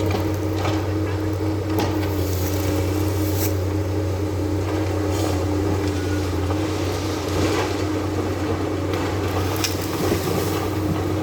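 Eucalyptus harvesting machine running steadily with a deep engine hum, with a few short sharp knocks or cracks at intervals.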